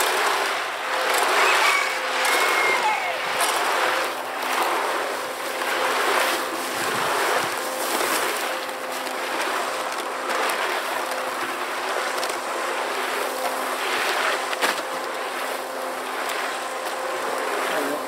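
Kushlan electric concrete mixer running, its motor giving a steady hum while the drum tumbles a wet mix of mortar and crushed stone, with a swishing that swells and fades every second or two.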